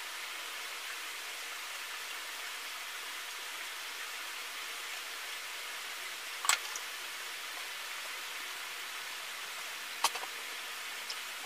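Steady hiss of running water, with two sharp knocks of plastic buckets being handled, about six and a half and ten seconds in.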